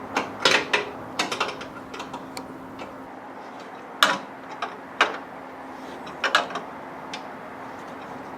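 Irregular sharp metallic clicks and knocks from hand tools and parts being handled while working on the engine, in small clusters, over a steady low hum.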